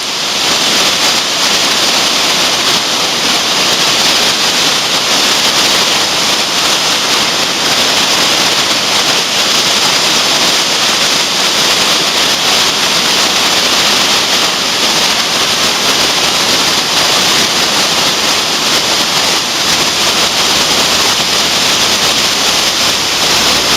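Torrential typhoon rain and running water: a loud, steady rush with no let-up.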